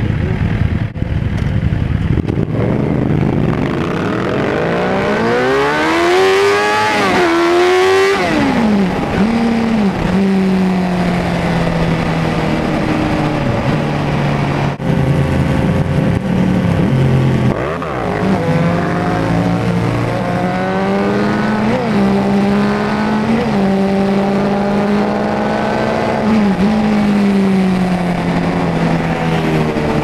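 Suzuki GSX-R750 inline-four engine accelerating hard from a stop. The revs climb steeply through the first several seconds with a brief dip for a gear change, then drop. It settles into a steady cruising note with a few short throttle dips and blips.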